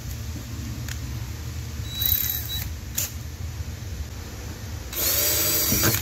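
Cordless drill boring small pilot holes through a trailer's side wall for the hatch's screws. It runs in two short bursts: a brief one about two seconds in, then a longer one of about a second near the end.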